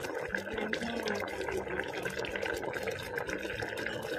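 Star gooseberries simmering in thickening sugar syrup, bubbling with many small, rapid pops and crackles as the syrup is reduced toward the end of candying.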